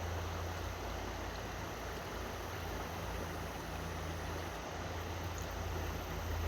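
Steady rush of water with a constant low rumble underneath, as from water pouring over a dam.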